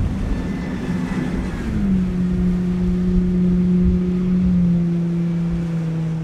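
Triple outboard motors on a center-console boat running at speed in a steady drone that drops in pitch twice as the boat passes and heads away, over a low rumble of wind on the microphone.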